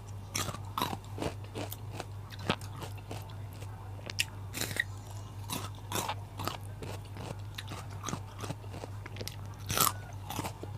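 A person chewing and crunching raw vegetables: many crisp bites in a row, with a louder crunch near the end, over a steady low hum.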